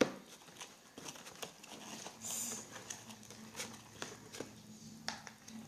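Thick, sticky homemade slime being worked and pried loose from its pot: faint soft squelches with scattered small clicks and taps.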